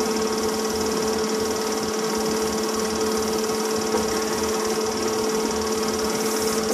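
Film projector running: a steady mechanical whirr with a constant hum over hiss.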